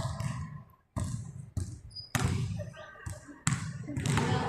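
A basketball bouncing on a gym floor, about five bounces at uneven intervals, each a sharp thud with a short hall echo.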